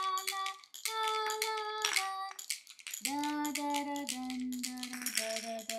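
A woman singing a simple tune in held notes while baby toy shakers of solid beech wood and a see-through roller toy are shaken, adding quick rattling clicks over the singing.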